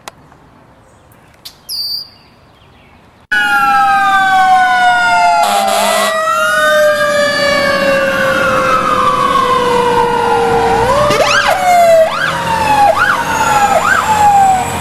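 A couple of short, high, falling calls from a red-winged blackbird. Then, about three seconds in, loud fire-engine sirens cut in: several wails sounding together, their pitches sliding slowly down, with a run of short rising whoops near the end.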